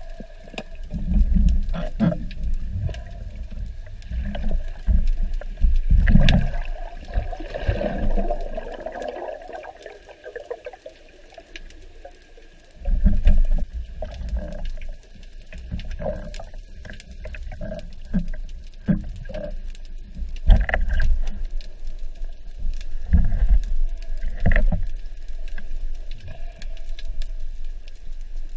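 Muffled underwater water noise heard through a camera mounted on a speargun: low rumbling and swishing of moving water with some bubbling, broken by irregular dull knocks from handling. A faint steady high tone runs underneath.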